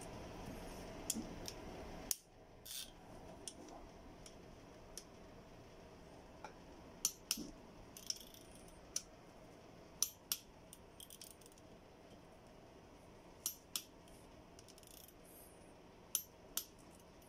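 Click-type torque wrench tightening connecting rod cap bolts to 11 foot-pounds, giving sparse sharp metallic clicks, several in quick pairs, among light tool handling.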